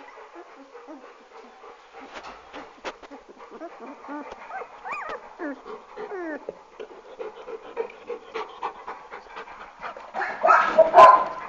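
Puppies whimpering close up, with a few rising and falling whines about halfway through and a louder cry near the end, among short snuffles and clicks.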